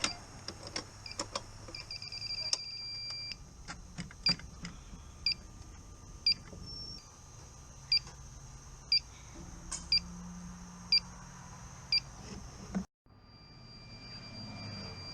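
Handheld combustible gas detector beeping about once a second as it picks up R290 propane refrigerant still in the system. In the first few seconds there are a few clicks and a quick run of faster beeps.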